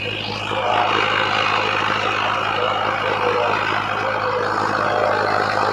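Mahindra Arjun Novo 605 DI-MS 4x4 tractor's diesel engine running steadily while driving an 8-foot Shaktiman rotavator through the soil. The engine holds an even pitch under the rotavator's load, which it carries without strain.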